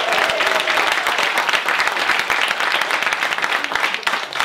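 Audience applauding, a dense patter of many hands clapping, thinning slightly toward the end.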